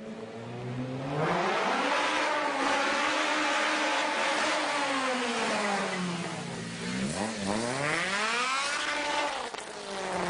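Honda K20 four-cylinder engine revving hard under acceleration. Its pitch climbs over the first second and a half and holds high, then dips sharply about seven seconds in, climbs again and falls away near the end.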